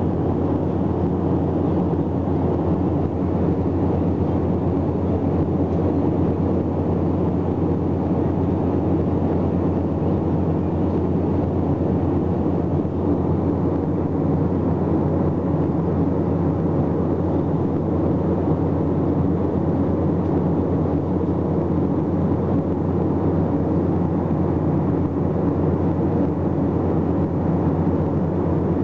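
Airbus A321 airliner heard from inside the cabin in flight: the engines and the rushing airflow make a steady, even rumble with a low hum underneath, unchanging throughout.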